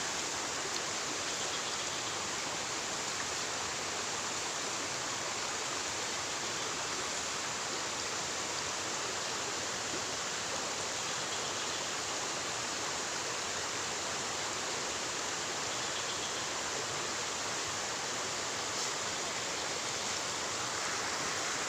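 Steady rushing of flowing water, like a stream running over stones, holding an even level throughout.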